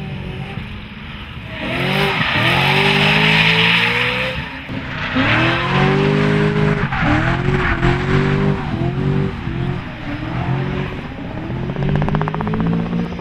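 Supercharged BMW E92 M3's V8 engine in a drift, its revs climbing and dropping over and over as the throttle is worked, with the rear tyres screeching as they spin. The tyre screech is loudest about two to four seconds in.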